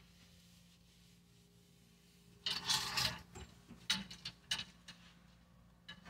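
A cloth wiping along the rods of a wall-mounted clothes rack, a brief scraping rub about two and a half seconds in. Then several short clicks and knocks as the wooden hangers' metal hooks shift on the rod.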